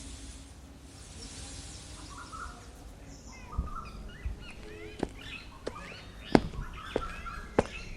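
Stock ambience of small birds chirping, after a hiss fades out in the first second. In the second half, sharp knocks come at an even pace, about one every two-thirds of a second; these knocks are the loudest sound.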